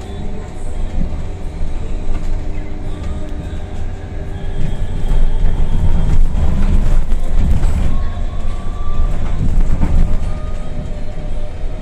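SKSBus ELC-229EV battery-electric bus on a CRRC C10 chassis, in motion: a heavy low road rumble that grows louder about four and a half seconds in and eases near the end. Faint thin whining tones from the electric drive drift up and down in pitch above the rumble.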